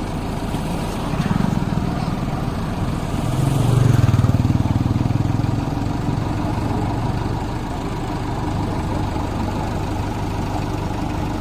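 Heavy diesel engine running, its revs rising twice: briefly about a second in, then more strongly for a couple of seconds around the four-second mark before settling back to a steady run.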